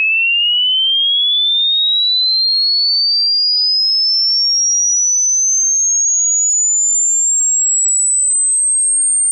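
Electronic sine-wave test tone from a 20 Hz–20 kHz frequency sweep, played in both left and right channels: a single pure tone gliding smoothly and steadily upward in pitch at a constant level, from a high whistle to a very high, thin one.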